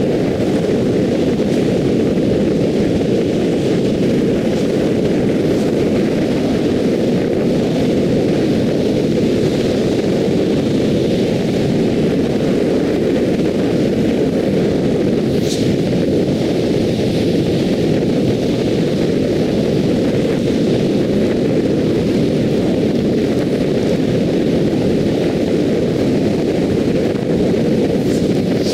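Steady tyre road noise and wind rush of a car cruising on an expressway, a loud, even rumble.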